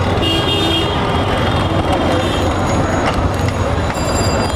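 Hand-cranked blower whirring steadily, forcing air into a charcoal grill fire.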